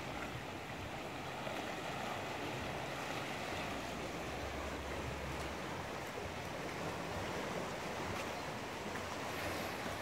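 Small sea waves washing among shoreline rocks, a steady wash of water.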